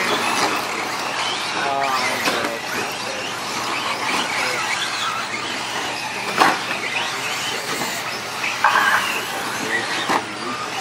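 Electric RC short-course trucks running on a dirt track, led by a Losi SCTe with a Castle MMP Pro speed controller and 3800kv brushless motor: motors whining and changing pitch with the throttle. There is a sharp knock about six seconds in as the truck lands a jump.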